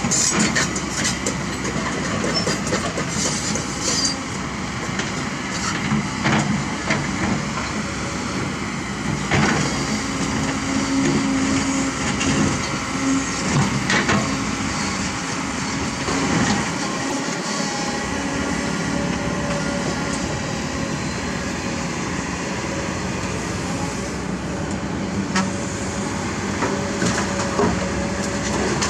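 Heavy diesel machinery running steadily: a hydraulic excavator working next to dump trucks, with a few sharp clanks scattered through.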